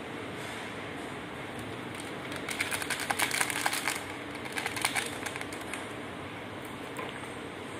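Plastic packet crinkling as flavour powder is shaken out of it, in a crackly burst from about two and a half to four seconds in and a shorter one near five seconds. Steady low background noise otherwise.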